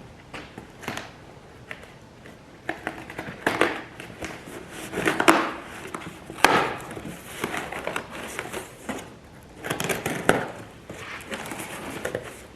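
Packaging being handled and opened: cardboard and plastic crinkling and rustling, with scattered sharp knocks and clicks.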